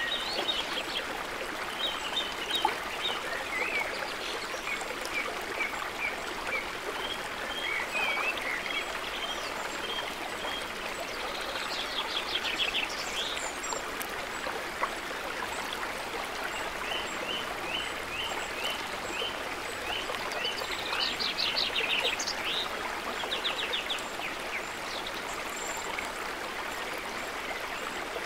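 Forest stream running steadily over rocks, with small birds singing over it: repeated short chirps and a couple of fast trills.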